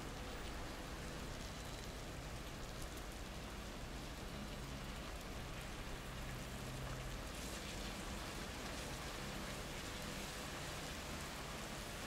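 Steady rain falling, an even hiss with no let-up. A low rumble swells slightly and fades around the middle.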